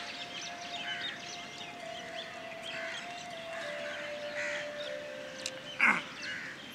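Birds calling outdoors: scattered short chirps throughout, with one louder call about six seconds in, over a faint steady hum.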